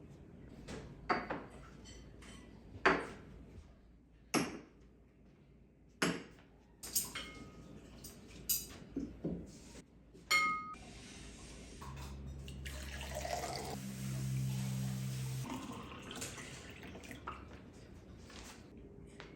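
Cutlery and dishes clinking: a string of sharp knocks and clinks, one ringing like glass about ten seconds in, followed by a few seconds of steady hum with a hiss.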